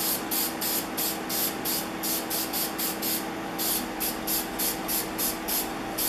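Aerosol can of spray lacquer hissing in short, even pulses, about four a second, with a brief break partway through.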